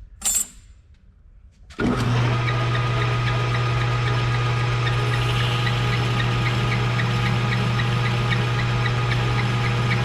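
Small metal lathe switched on about two seconds in and running steadily, with a low hum and a faint regular ticking. This is the start of parting the knob off.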